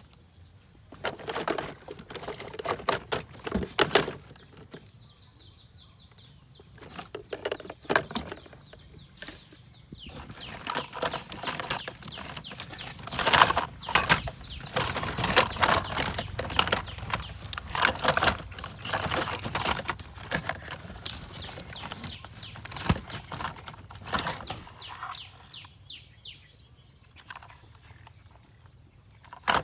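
Irregular clicking and rattling, in bursts that come and go, typical of small diecast model cars being handled and rolled on a hard surface.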